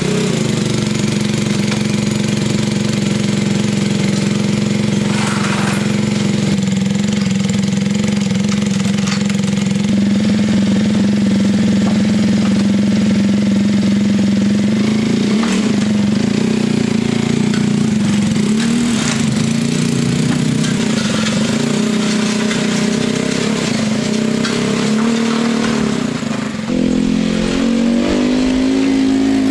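Polaris Sportsman 570 ATV's single-cylinder engine running at a steady idle. Its pitch shifts several times in the second half as the throttle is worked, stepping up near the end.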